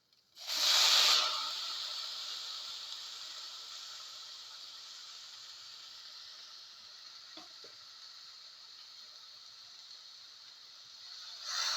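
Chopped tomato pieces going into a hot, oiled saute pan: a sudden loud burst of sizzling that slowly dies down to a steady hiss, then swells again near the end.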